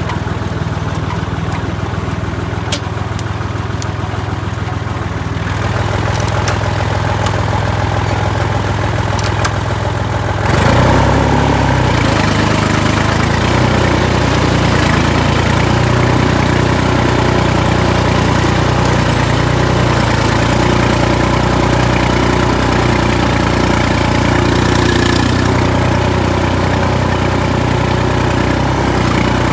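Massey Ferguson 148 tractor's three-cylinder diesel engine running steadily. About ten seconds in it revs up and stays louder while the tractor drives along the track.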